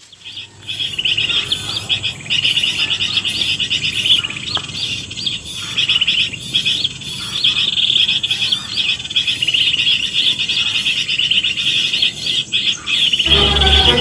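Bird-call lure recording (MP3) played from a small speaker to attract birds: dense, rapid, high-pitched chirping and twittering, starting about half a second in. A low rumble joins near the end.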